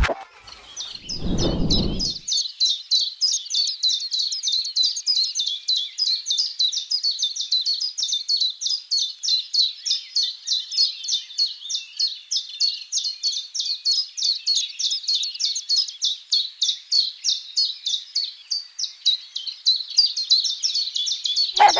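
Common chiffchaff singing: a long unbroken run of short, high, downward-slurred notes, several a second. There is a brief low rumble about a second in.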